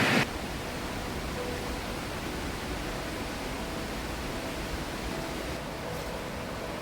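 Steady rushing of a waterfall and river, an even noise without change.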